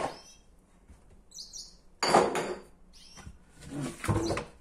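Wooden chopping boards knocking against each other and the cupboard shelf as a stack of them is lifted out. There is a sharp knock at the start, a louder clatter about two seconds in, and lighter knocks near the end.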